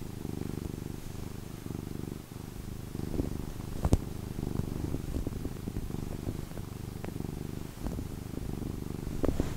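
American Shorthair cat purring steadily close to the microphone, a fast, even low rumble. A single sharp click about four seconds in is the loudest sound.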